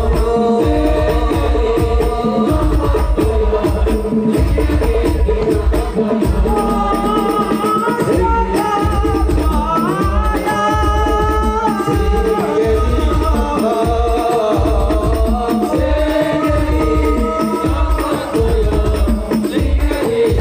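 Amplified male voices singing a sholawat (Islamic devotional song), a lead voice holding long ornamented notes that glide up and down, over a steady beat of hand drums.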